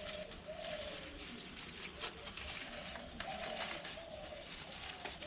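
A pigeon cooing: repeated low, soft coos in pairs over a steady background hiss.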